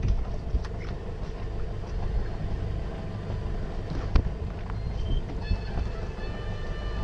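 Steady low rumble aboard a fishing boat at sea, with a couple of sharp clicks, the clearest about four seconds in. A faint, thin, steady whine begins near the end.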